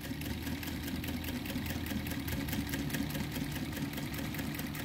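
Juki industrial sewing machine running and stitching leather around a cap bill: a steady motor hum under a rapid, even rhythm of needle strokes.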